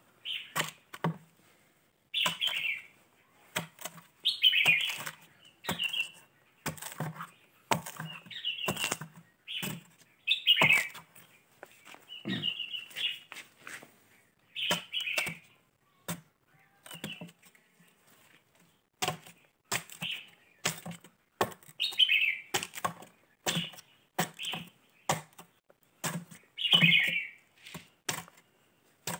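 A red-whiskered bulbul calls repeatedly in short bright phrases about every two seconds. Scattered sharp knocks and taps come from an iron bar working into the soft pith of a hollowed fishtail-palm trunk.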